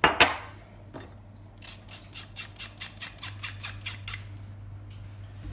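A sharp knock, then a fine-mesh stainless-steel sieve shaken quickly over a glass bowl to sift flour, cocoa powder, baking powder and salt: a rapid run of scratchy rattles, about six a second, for a couple of seconds.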